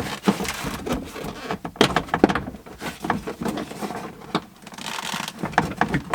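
Irregular knocks, clicks and scraping from car parts and tools being handled during hands-on disassembly.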